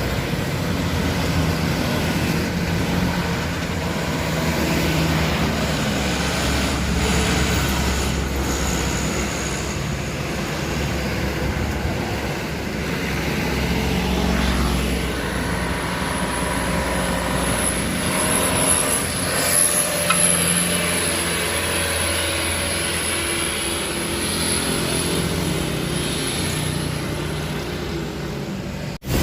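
Truck engine running hard under load on a steep uphill climb, its low hum swelling and easing, with a thin high whine through the middle stretch.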